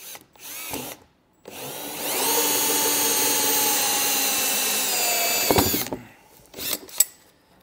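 Cordless drill driving a hole saw through a rock guard panel to round off a corner. After a brief start, it spins up and runs steadily for about four seconds, then winds down. A few sharp clicks follow.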